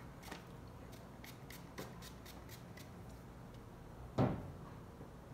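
Spray bottle spritzing water onto hair in about ten quick short hisses over the first three seconds, then one loud knock a little past four seconds in.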